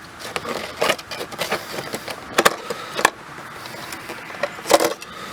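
Plastic car door trim panel being handled and worked loose, with a run of sharp clicks, knocks and scrapes; the loudest knocks come about two and a half seconds in, at three seconds, and near the end.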